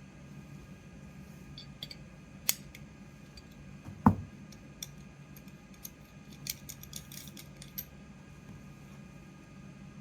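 Small metal clicks and clinks from handling the head of a handheld fiber laser welder while its focus is adjusted, with one heavier knock about four seconds in and a flurry of light clicks later on, over a faint steady machine hum.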